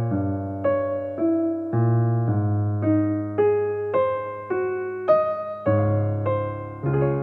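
Background piano music: a slow melody of single struck notes, about two a second, each fading away, over held low bass notes.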